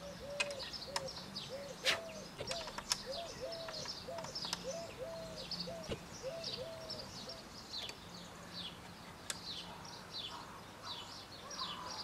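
Small birds chirping throughout, with a run of short repeated call notes, about two a second, through the first half. A few sharp clicks from metal parts being handled sound in the first few seconds.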